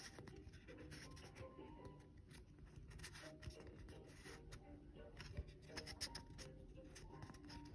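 Faint music playing, with soft scratches and ticks of a fingertip rubbing a clear plastic piece on a cardboard album cover.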